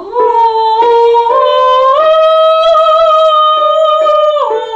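A woman singing a long, sustained vowel tone as a vocal exercise. She slides up into the note, steps up to a higher pitch about two seconds in, and drops back to the first pitch near the end.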